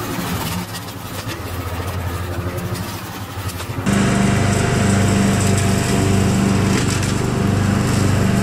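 A walk-behind rotary lawn mower runs under load as it is pushed through overgrown grass and brush. About four seconds in it gives way abruptly to the louder, steady running of a riding lawn mower's engine.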